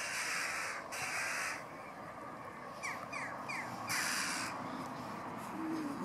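Harsh, rasping alarm calls from birds circling and diving overhead: several long calls, with a quick run of three short falling notes about three seconds in. They are adult birds mobbing an intruder close to their young.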